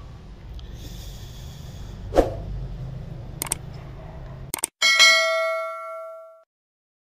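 Low steady rumble with a single thump about two seconds in, then mouse clicks and a bright notification-bell ding from a subscribe-button animation, the ding being the loudest sound and ringing out for about a second and a half.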